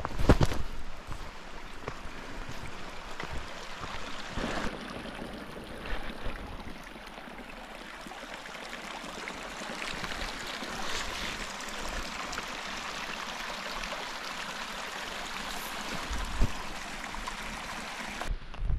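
Small mountain creek running over rocks: a steady rush of flowing water, with a few thumps, the loudest right at the start.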